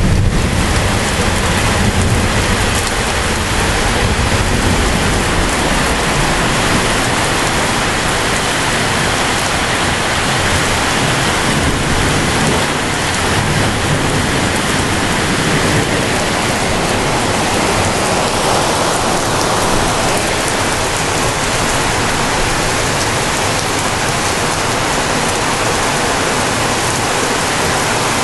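Heavy rain falling in a steady hiss, with a low rumble of thunder dying away over the first few seconds.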